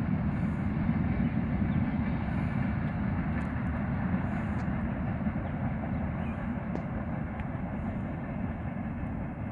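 Freight train's cars rolling away along the track: a steady low rumble of wheels on rail, slowly fading.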